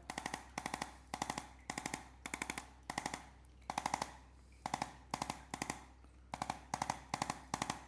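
Bursts of rapid mechanical clicking, about five quick clicks in each burst, repeating roughly twice a second.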